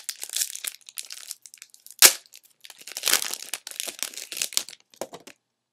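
Foil trading-card pack wrapper being torn open and crinkled in the hands, with a sharp rip about two seconds in.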